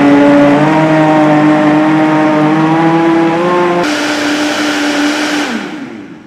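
Oster Versa 1400-watt blender motor running at high speed on its soup program, a loud steady whine whose pitch creeps up slightly. About four seconds in the sound changes abruptly. Near the end the motor winds down with a falling pitch and stops as the program finishes.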